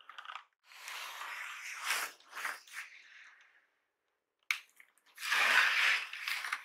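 Cardboard shipping box handled by gloved hands: stretches of scraping and rustling on the cardboard and tape, with a sharp tap partway through.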